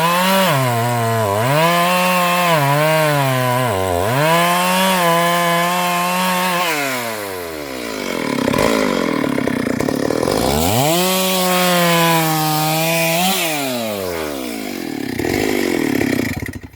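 Stihl MS 382 two-stroke chainsaw at full throttle, sawing through a large sengon trunk. Its pitch sags repeatedly as the chain bogs in the cut. It drops to low revs about seven seconds in, winds back up to full speed around eleven seconds, eases off again, and cuts out suddenly near the end.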